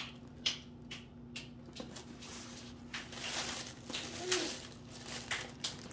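Plastic wrapping and a nylon tote bag rustling and crinkling as they are handled, with scattered sharp clicks and a denser stretch of rustling in the middle.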